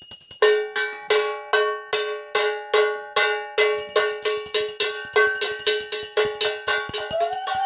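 A puja hand bell rung steadily, about three strikes a second, each strike ringing on the same clear pitch; the ringing turns faster and denser about halfway through. Near the end a steady held tone rises in under the bell.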